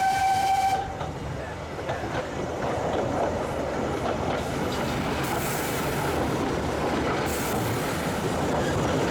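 A steam whistle on a narrow-gauge train double-headed by Corris Railway Falcon saddle tanks No. 10 and No. 3, cutting off about a second in. The train then runs on steadily along the rails.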